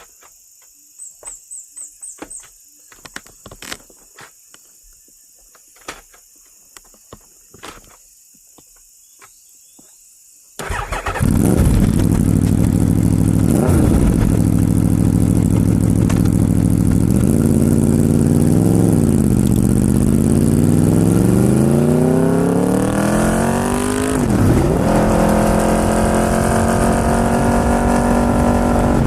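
Aprilia RSV4's V4 engine starting abruptly about ten seconds in, after a stretch of quiet broken by scattered clicks. It is blipped twice, then the revs climb steadily, drop sharply once and settle at a higher, steady note near the end.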